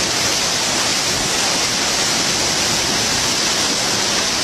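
Torrential wind-driven storm rain: a loud, steady rush with no let-up.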